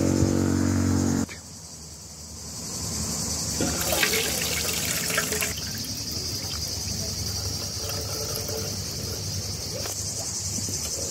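Cloudy rice-rinsing water poured from a ceramic pot through a perforated aluminium colander, splashing and trickling steadily. Insects chirp throughout in a steady high band. A short stretch of music cuts off about a second in.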